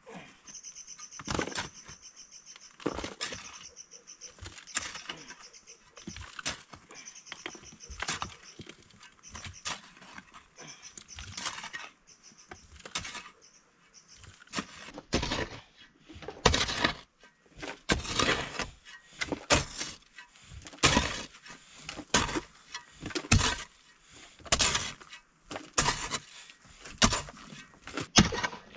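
A series of sharp knocks and clacks, irregular at first, then coming about once or twice a second and louder in the second half. A faint high steady chirp sounds through the first several seconds.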